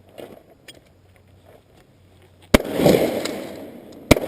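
Two sharp, loud blasts about a second and a half apart, each trailing off in a long rolling rumble.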